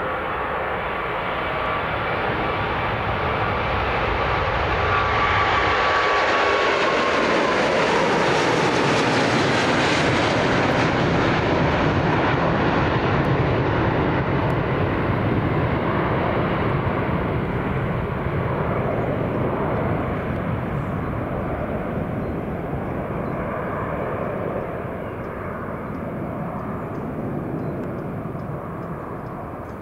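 Jet airliner's engines at takeoff power passing close by. A whine in the engine noise falls in pitch as the aircraft goes past, about seven seconds in; the rumble then slowly fades.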